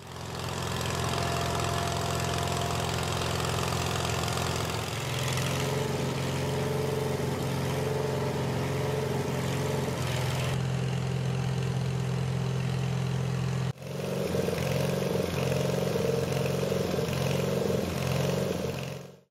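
Boom truck's engine running steadily while its crane hoists a section of the bow. The sound breaks off sharply about 14 seconds in and picks up again with a slightly different hum.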